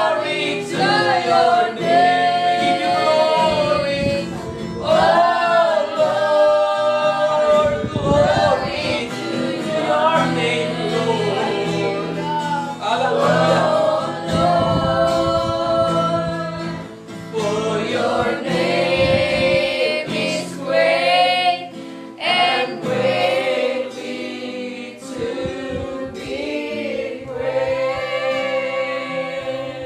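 A man singing a worship song, accompanying himself on a strummed acoustic guitar.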